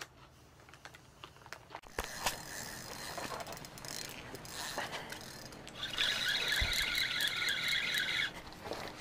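Rustling and knocks of handling gear, then, about six seconds in, a fishing reel's drag buzzing for about two seconds as line pulls off the spool: a sturgeon has taken the bait and is running.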